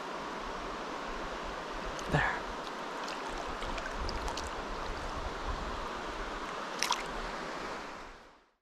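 Steady rush of the Tellico River's pocket water flowing over rocks, with a couple of brief knocks about two and seven seconds in; the sound fades out near the end.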